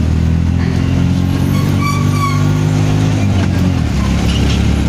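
Auto-rickshaw engine running steadily under way, heard from inside the open cabin; its steady drone eases about three and a half seconds in.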